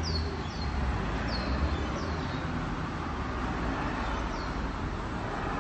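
Steady background rumble like distant traffic, with several short high chirps, each falling in pitch, in the first half and again about four seconds in.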